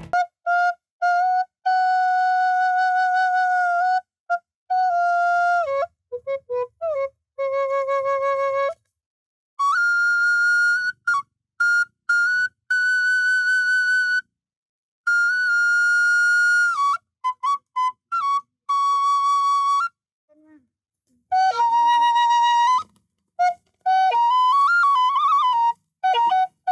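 Bamboo suling flute playing a slow solo melody: long held notes with a slight vibrato, in short phrases broken by silences, with quicker ornamented notes near the end.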